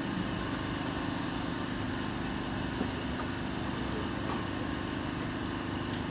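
Steady low background rumble, unchanging throughout.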